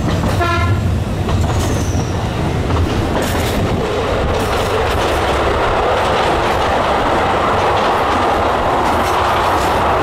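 Narrow-gauge Alishan Forest Railway train running: steady rumble of wheels on rail, heard from a carriage window, with a short horn blast about half a second in. From about four seconds on, the train is in a tunnel and the running noise becomes a louder, echoing rush.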